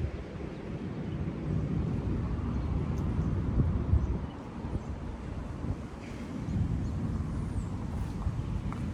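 Wind buffeting the microphone outdoors: an irregular low rumble that swells and eases in gusts, with a few faint bird chirps near the end.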